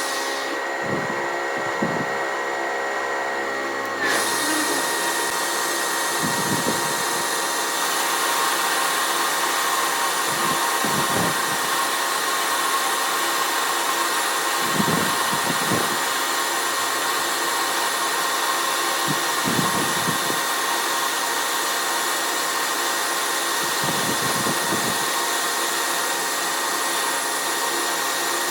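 A workshop machine or power tool running steadily: a continuous whirring hiss with a steady high whine, which changes abruptly about four seconds in.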